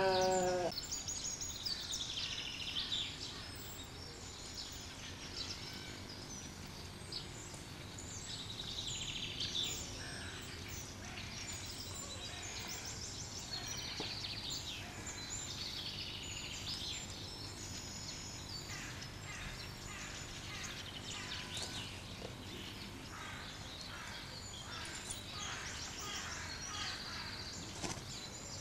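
Small songbirds chirping and trilling over a steady outdoor background hiss, with a short pitched call right at the start.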